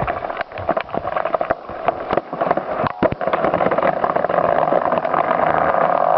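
Felled tree going over: wood cracking and branches snapping in a quick run of sharp cracks over the first few seconds. Under it runs a steady mechanical drone that grows louder near the end.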